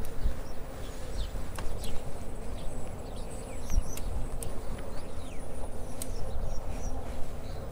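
Wind on the microphone and tyre rumble from a moving electric bike, a steady low rush, with a few short, high, falling bird chirps scattered through the middle and a few light clicks.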